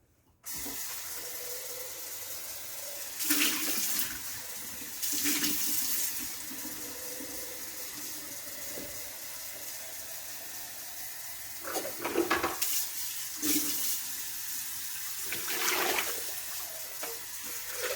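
Water pouring steadily into a gallon lemonade container over the sugar. It starts suddenly about half a second in and gets louder in a few short spells.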